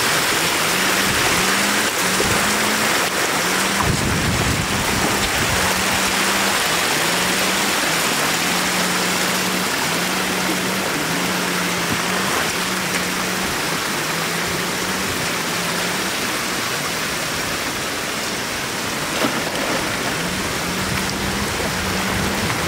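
Floodwater running in a sheet over a road edge into shallow water: a steady rushing wash. A faint low tone repeats about once a second under it.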